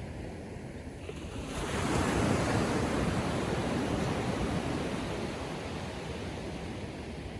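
A small ocean wave breaking on the shore: the surf noise swells about a second and a half in, then its wash fades slowly.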